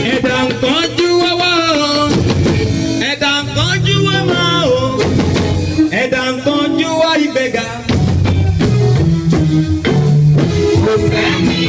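Live band music in Yoruba church style: a drum kit keeps a steady beat under a melody line that comes in phrases of about two seconds, over held bass notes.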